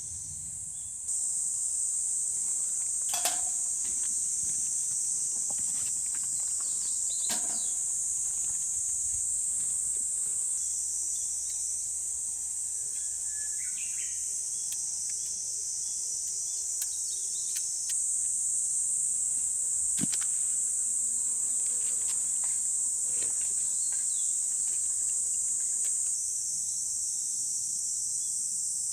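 Summer insect chorus: a steady, high-pitched buzz that runs without a break, with a few sharp clicks now and then.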